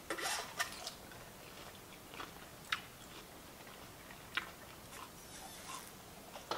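Close-up eating sounds of a person biting into and chewing a vegetable spring roll: a bite right at the start, then quiet chewing with a few sharp mouth clicks.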